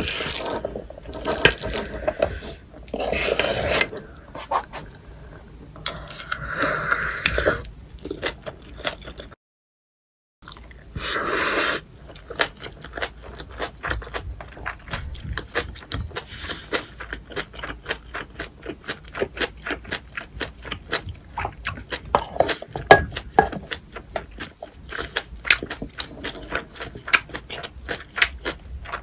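Close-miked eating of cockle bibimbap. A spoon scrapes through the rice in the bowl in several bursts, the sound cuts out for about a second, and then steady chewing follows with many small wet mouth clicks.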